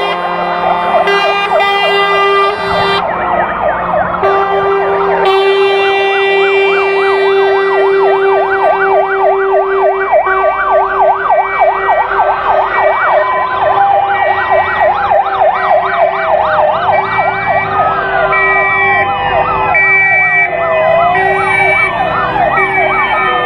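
Sirens and horns of a convoy of Polish fire engines driving past on alarm. Many sirens overlap: fast yelping sweeps and slower wailing ones ride over steady horn tones. Near the end a hi-lo two-tone horn alternates.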